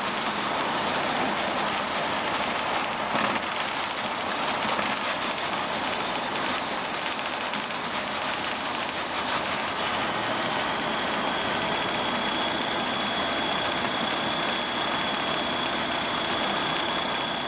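Skyranger microlight's Rotax 912 four-cylinder boxer engine running at low power, propeller turning, with air rushing past the cockpit as the aircraft rolls along the runway. The rushing hiss eases about ten seconds in, and a steady high whine comes in from then on.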